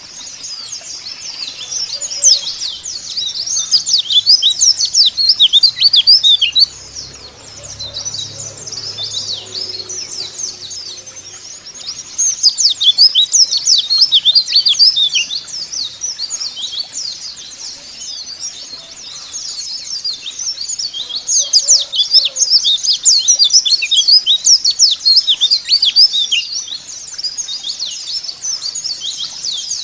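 White-eyes (pleci, Zosterops) twittering in a dense stream of quick, high, downward-sliding chirps. The chirping swells louder in three bouts, about two seconds in, about twelve seconds in and about twenty seconds in, with softer twittering between.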